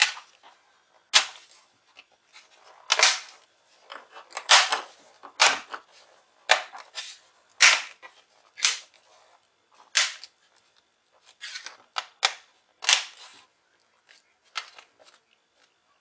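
Plastic bottom cover of an HP notebook snapping onto the chassis as it is pressed down around its edges: more than a dozen sharp plastic clicks, irregularly spaced, as its clips catch one by one.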